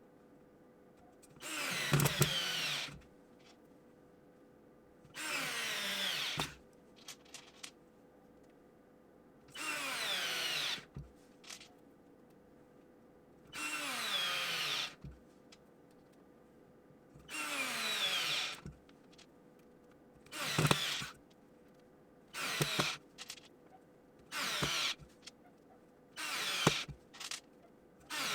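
Parkside PASS 4 A1 4-volt cordless electric screwdriver driving screws into wood one after another: nine runs of motor whine, each dropping in pitch as the motor slows under load while the screw goes in. Small clicks come between runs, and the later runs are shorter and closer together.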